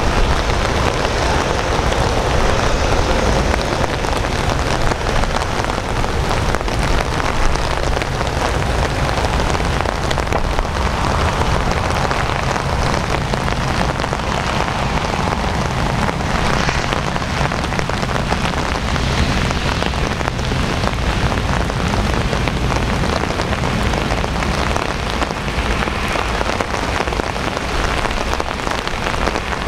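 Steady rain falling and pattering on surfaces, an even hiss with no breaks.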